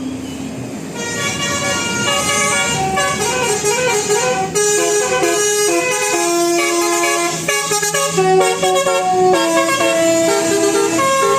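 A tour bus's basuri telolet horn, a multi-note musical horn, playing a quick tune of short stepping notes, starting about a second in.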